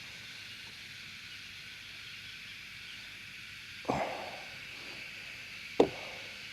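Cicadas droning steadily in the trees, with two sharp knocks about two seconds apart partway through.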